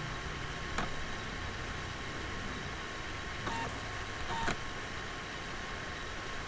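Steady hiss of a computer recording microphone with a faint steady whine, broken by three short clicks: one about a second in and two more past the middle.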